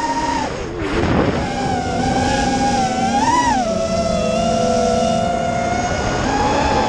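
FPV racing quadcopter's brushless motors and propellers whining, the pitch following the throttle: it drops about half a second in, swells and falls back around three seconds in, holds steady, then rises again near the end.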